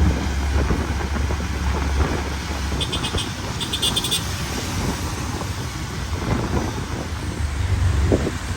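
Road traffic noise: a steady low rumble of vehicles with an even hiss over it, and brief high-pitched beeps about three and four seconds in.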